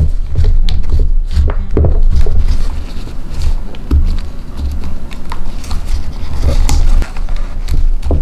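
Close-up handling sounds of nitrile-gloved hands flexing a silicone soap mold and pressing a bar of cold-process soap out of it: irregular rubbery rustling and clicks with soft low thuds against the board.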